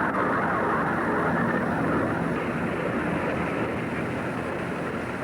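Steady rushing roar of engine noise, easing off slightly toward the end.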